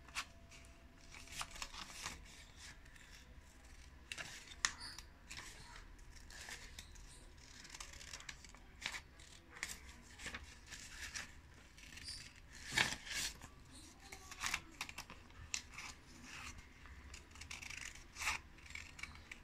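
Scissors making short, irregular snips through a folded sheet of pastel paper. The snips are faint, with a louder one about two thirds of the way through.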